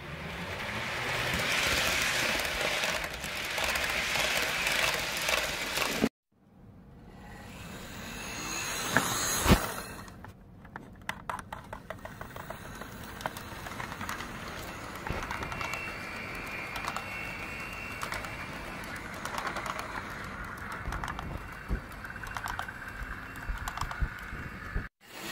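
Model train rolling past close by on plastic roadbed track: a diesel locomotive model and its string of container and box cars, the wheels clicking over the rail joints with one sharper click about nine seconds in. The sound cuts out briefly about six seconds in and again near the end.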